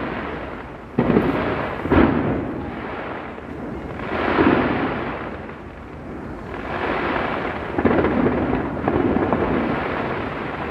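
Aerial fireworks bursting: sharp bangs about one and two seconds in, then rolling booms that swell and fade in waves.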